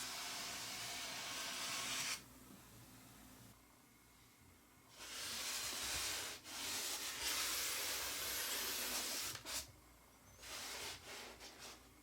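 Packaging rustling and rubbing as it is handled. There is a long rustle at the start, a longer one from about five to nine and a half seconds in, and a few short rustles near the end.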